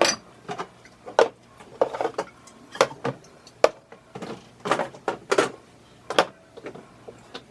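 Drink cans and bottles being set down one after another on fridge shelves: a string of separate clinks and knocks, about one a second.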